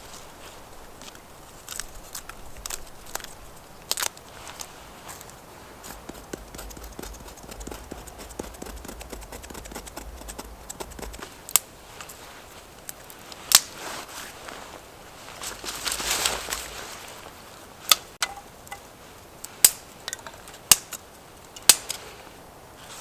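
Dry wood snapping: a scatter of sharp cracks over rustling, the loudest coming about a second apart in the second half, with a noisier burst of about a second and a half near the middle.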